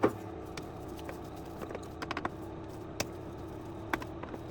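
Scattered, irregular small clicks and taps of a screwdriver working on screws in the plastic underside of an induction hob, with a sharper click at the start, over a steady faint hum.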